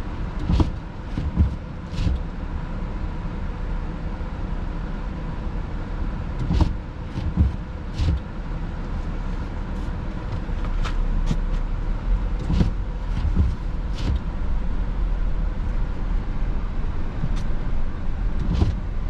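A van's engine running with a low, steady rumble, with scattered short knocks and clicks over it.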